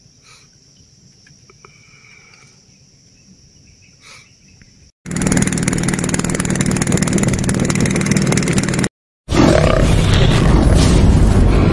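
Steady high-pitched insect chirring over quiet ambience for about five seconds. Then a loud, harsh, noisy sound cuts in suddenly, stops briefly near nine seconds in, and comes back just as loud.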